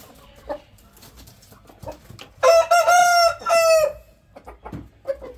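A rooster crows once about halfway through, a single call of about a second and a half with a brief dip near its end. Short, soft clucks from hens come before and after it.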